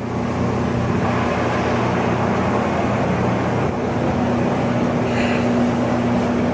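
Weisser 16-inch gap-bed engine lathe running under power, its spindle and three-jaw chuck turning at speed: a steady mechanical whir with a constant hum.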